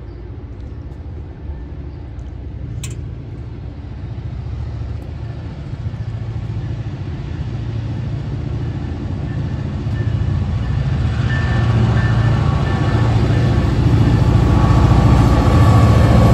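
Diesel freight locomotive approaching under power, its engine drone growing steadily louder. Steady high-pitched tones join in about eleven seconds in as it draws near.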